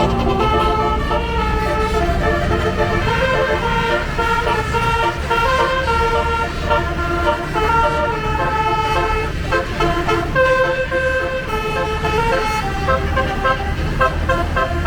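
A bus's 24-note 'basuri' telolet horn set playing a melody, steady tones stepping from note to note in quick succession, over a low engine rumble.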